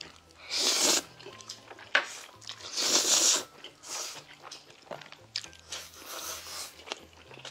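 Jjajang ramen noodles slurped, in three long, loud slurps spaced about two and a half seconds apart, with smaller chewing and mouth sounds between them.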